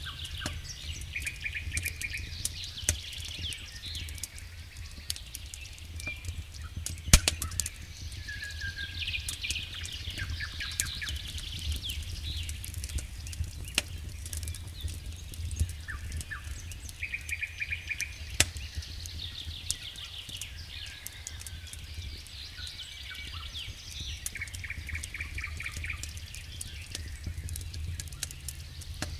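Wood campfire crackling, with irregular sharp pops and a loud snap about seven seconds in, over a low steady rumble. Short high trills repeat every few seconds in the background.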